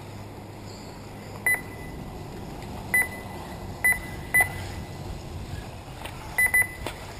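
Short high electronic beeps from an RC race lap-counting system, one at a time at irregular gaps and a quick double near the end, each marking a car crossing the timing line, over a steady low background noise.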